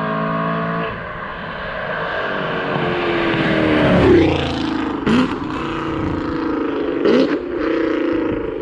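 Exhaust of a Camaro SS 1LE's 6.2 L LT1 V8 with long-tube headers, accelerating. Its pitch climbs for about three seconds, then drops sharply about four seconds in, followed by two short sharp cracks.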